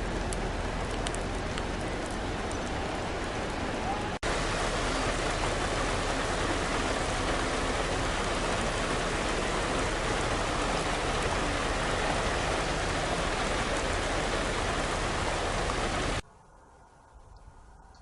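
Heavy rain falling as a steady, even hiss. It breaks off for an instant about four seconds in and comes back a little louder, then cuts off suddenly about sixteen seconds in, leaving a much quieter background.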